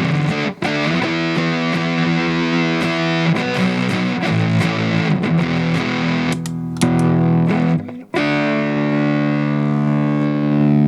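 Electric guitar played through a transistor fuzz pedal: distorted notes and chords, with a brief break about half a second in and another about eight seconds in, then a long sustained chord.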